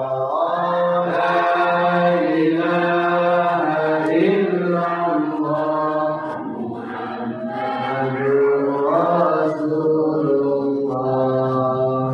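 A voice chanting Islamic dhikr in long, drawn-out melodic phrases, with held notes that bend slowly in pitch and a short break about six seconds in.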